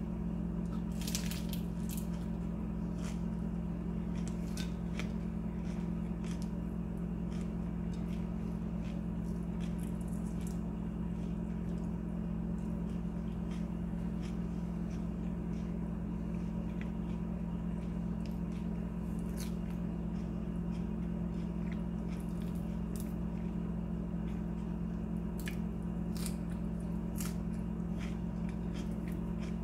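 Person eating a bean taquito: soft chewing and scattered faint clicks of a fork on a plate, over a steady low hum.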